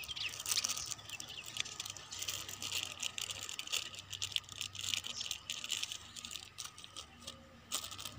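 A small wrapped packet being picked open by hand: irregular crinkling and crackling of the wrapping, many small rustles close together.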